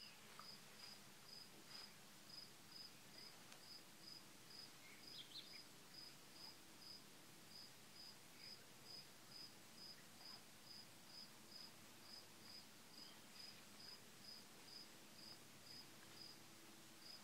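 Faint cricket chirping: a steady run of short, high chirps at about two a second.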